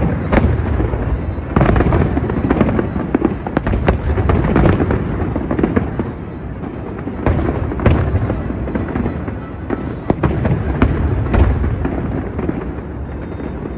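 New Year fireworks going off in rapid succession: a near-continuous run of bangs and crackles over a low rumble, with the biggest bursts about two, eight and eleven seconds in.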